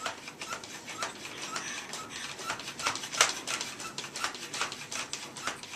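Air pump of a Nerf Mag Strike blaster worked quickly by hand, about two strokes a second, each stroke a sharp click with a short squeak. The pumping builds air pressure in the blaster's tank before firing.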